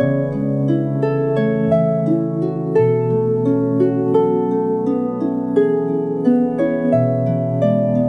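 Ancient Greek–style lyre music: plucked strings playing a slow, flowing run of ringing notes over a sustained low tone that changes pitch twice.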